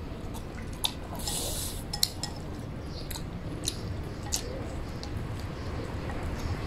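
Two people eating from porcelain bowls: wet chewing, a short slurp about a second in, and a few sharp clicks of chopsticks against the bowls.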